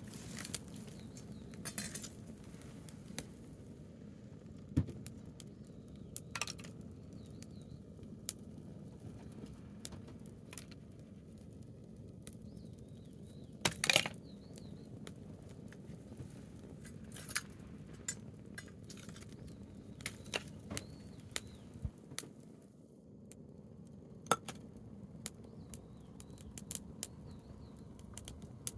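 Campfire of burning branches crackling: irregular sharp pops and snaps over a steady low background noise, with a louder snap about five seconds in and another about fourteen seconds in.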